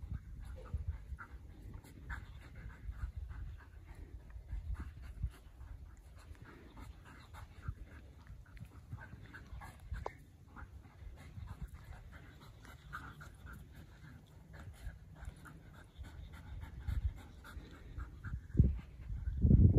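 Dogs panting in quick, rasping breaths during rough play, over a low rumble, with a single thump near the end.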